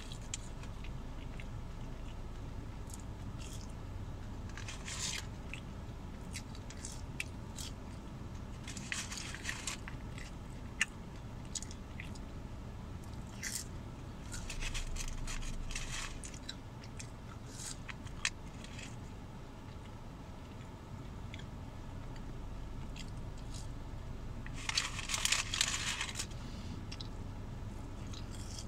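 A person chewing and biting McDonald's french fries close to the microphone, with soft crunches and wet mouth clicks coming in irregular spells, a few of them louder. A steady low hum runs underneath.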